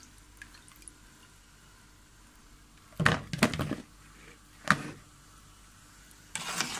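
Wet blanched figs tipped from a stainless mesh skimmer into a plastic bowl: a short clatter of dripping water and landing fruit about three seconds in, then a single sharp knock of the skimmer over a second later, and another splashy burst near the end.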